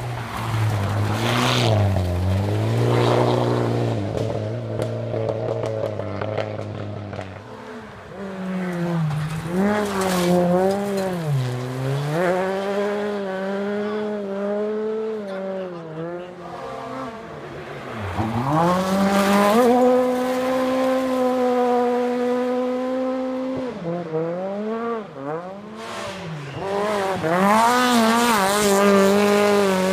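Rally cars driving flat out one after another, their engines revving high, the pitch climbing and dropping again and again through gear changes and lifts. Past the middle, one holds a steady high note for a few seconds.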